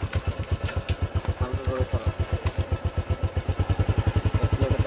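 A small engine running steadily, with an even beat of about ten pulses a second.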